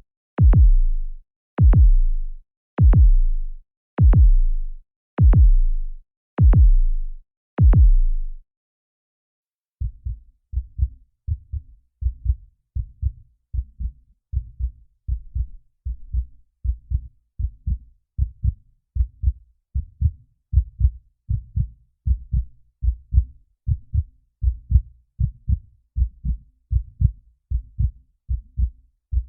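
Heartbeat sound effects: first a slow run of single loud, deep thuds about one a second, then, after a short gap about ten seconds in, a quieter and faster heartbeat of paired lub-dub beats.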